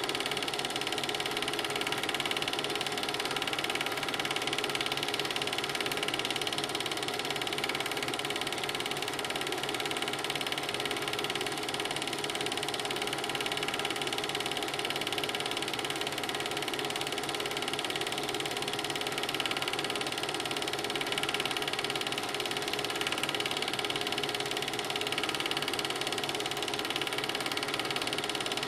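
Film projector running with an even, unbroken mechanical rattle.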